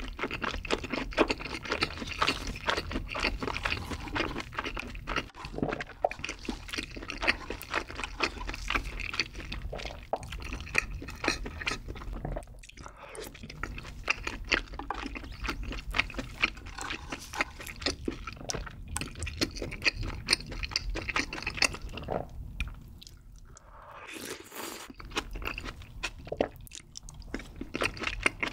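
Close-miked chewing of a mouthful of carbonara tteokbokki (rice cakes and pasta in creamy sauce), many small wet mouth clicks close together. It eases off briefly about 12 seconds in and again for a moment near 23 seconds.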